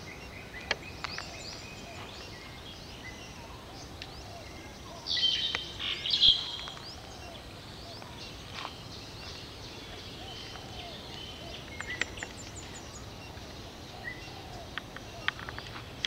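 Wild birds chirping and calling over a steady outdoor background, with short high notes scattered throughout. A louder burst of calls comes about five seconds in, and a quick run of high ticking notes near twelve seconds.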